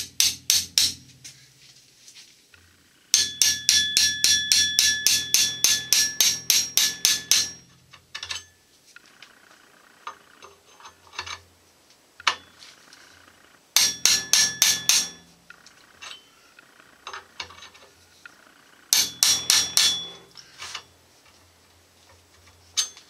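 Hammer blows driving a new commutator end bushing into a Delco-Remy starter's end cover through a bushing driver, with a ringing metal clink on each strike. They come in four runs of rapid taps, about five a second; the longest run lasts some four seconds, and there are lighter ticks in the pauses between runs.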